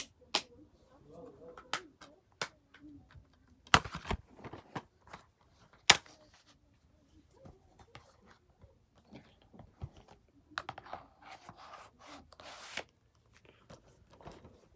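Plastic DVD cases and discs being handled: a string of sharp clicks and snaps, the loudest about four and six seconds in, with brief rustling of packaging later on.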